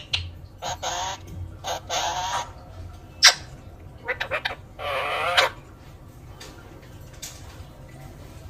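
Pet parrot calling: three drawn-out pitched calls, about one, two and five seconds in, with sharp clicks between them; quieter after the third call.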